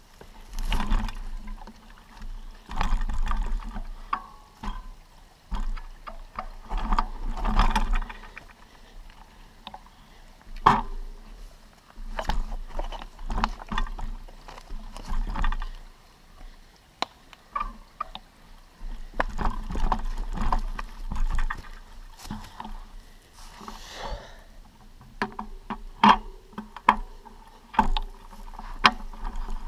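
A hiker's footsteps on stones and dry leaf litter: irregular crunches, scuffs and sharp knocks, with bouts of low rumble on the microphone.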